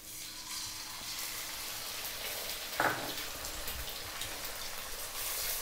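Two eggs poured into hot oil in a wok, sizzling with a steady frying hiss that sets in just after the pour. There is one brief, sharper sound about three seconds in.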